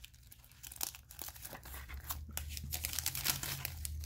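Foil wrapper of a trading card pack crinkling and tearing as it is peeled open, a run of small irregular crackles that grow louder after about a second and a half.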